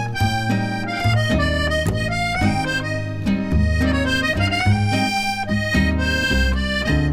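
Background music: an instrumental tune with a reedy melody like harmonica or accordion over a steady bass line.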